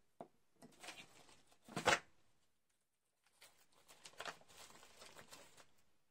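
Hands handling paper and plastic-wrapped craft supplies on a tabletop: a few short rustles and knocks, the loudest just before two seconds in, then a longer stretch of rustling.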